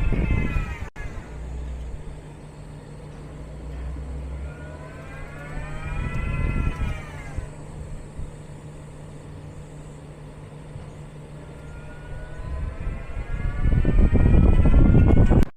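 Geely Geometry's electric drive motor whining, its pitch rising and then falling, as the car pulls away and brakes again and again to bring out a creak. A heavy rumble builds near the end.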